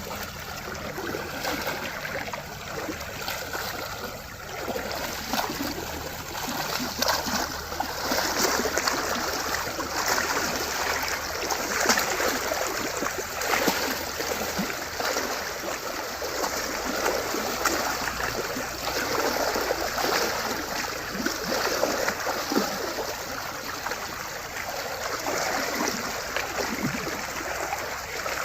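Cattle wading across a shallow, flowing river, their legs and hooves splashing irregularly in the water over the steady rush of the stream.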